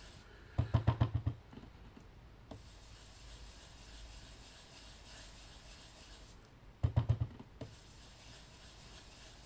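A small round foam ink dauber tapped rapidly on paper over a cutting mat to pounce ink through a stencil: two quick runs of about eight dull taps, one about a second in and one about seven seconds in. Faint rubbing of the dauber swirling on the paper comes between them.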